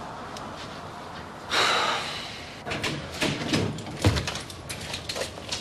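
A door being opened and shut inside a house: a brief rushing noise about a second and a half in, then a run of sharp knocks and clicks.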